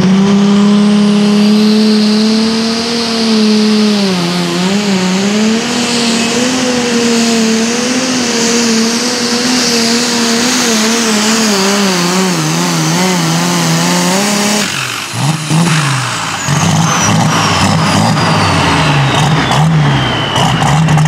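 Super stock pulling tractor's turbocharged diesel running flat out under load as it drags the sled, its pitch dipping and wavering as the load bites. About 15 s in the engine note drops off sharply as the pull ends. It then runs lower and unevenly, under a high whine that falls steadily in pitch.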